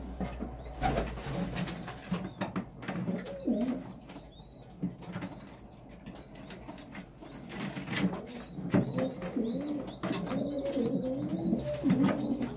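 Domestic pigeons cooing in a loft, the low rising-and-falling coos coming thick and fast in the second half, with faint high squeaks and scattered clicks and knocks from the nest boxes being handled.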